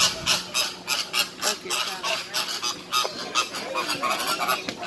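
A flock of flamingos calling: many short honks in quick succession, overlapping one another.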